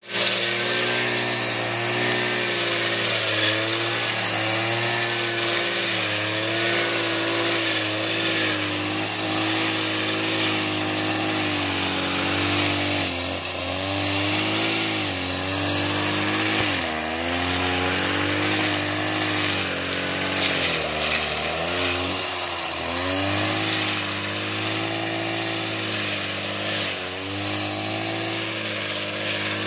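Backpack brush cutter's small petrol engine running at high speed while cutting thick, tall grass, its pitch dipping a few times under the load and picking up again.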